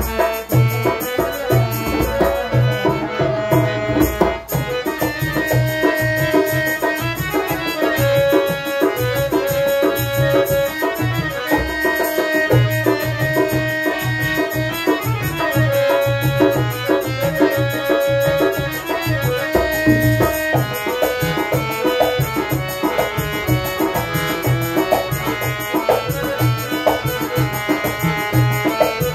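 Harmonium playing a held-note melody over a steady hand-drum rhythm, a traditional-style tune with no break.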